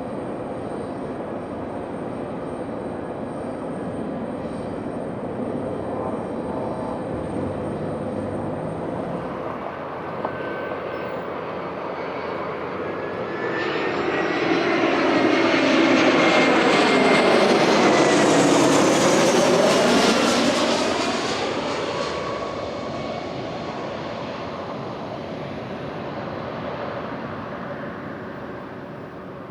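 Jet airliner's engines passing close by, swelling to a loud peak about halfway through with a sweeping whoosh and a slightly falling whine, then fading away.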